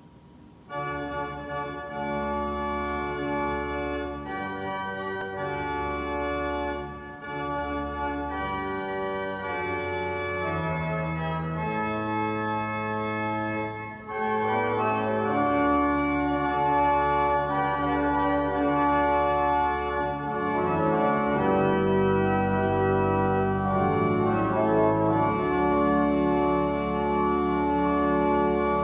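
Organ playing slow, sustained chords with deep bass notes. The music dips briefly about halfway through and comes back louder.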